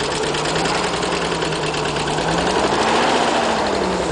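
Nissan 300ZX (Z32) 3.0-litre V6 running at idle, its speed rising briefly about two and a half seconds in and then settling back; the owner puts its running down to bad fuel injectors.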